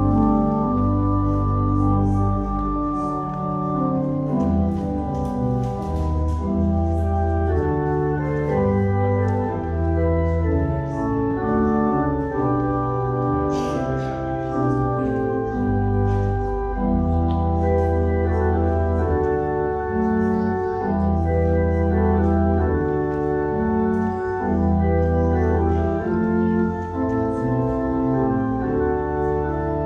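Organ playing slow, sustained chords over a moving bass line: offertory music.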